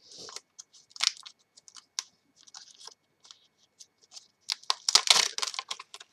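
Clear plastic stamp packaging being handled: scattered clicks and crinkles, with a denser burst of crinkling about four and a half seconds in.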